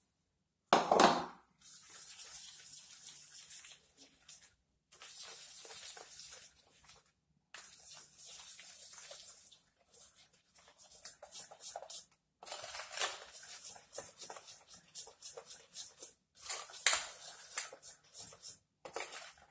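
Hand wire whisk beating a flour-and-sugar batter in a steel bowl: rhythmic scraping and ticking of the wires against the bowl, in several short stretches broken by abrupt silences. A louder thud about a second in.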